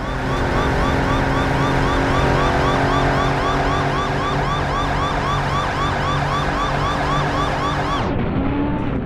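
Electronic siren yelping rapidly, about four quick rise-and-fall sweeps a second over a steady hum. Near the end it stops and a falling tone winds down.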